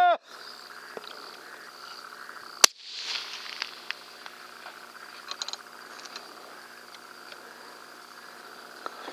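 Crickets chirping steadily at night, broken about two and a half seconds in by a single sharp, loud rifle shot from a Remington 700 in .243 Win, with a short echo and a few faint clicks after it. A loud, held electronic predator-call tone cuts off right at the start.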